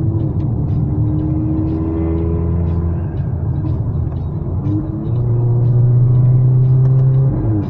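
Car engine and road noise heard from inside the cabin of a Mercedes A-Class on the move, a low drone whose pitch slowly rises as the car pulls. It grows louder and steadier about five seconds in, then drops away shortly before the end.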